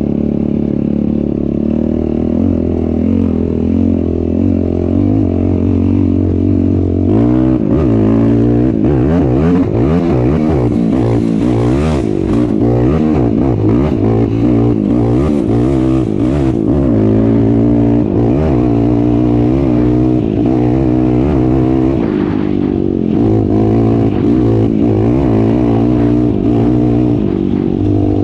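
Off-road vehicle's engine heard on board while driving over sand. It runs steadily for the first several seconds, then rises and falls in pitch as it revs through most of the rest.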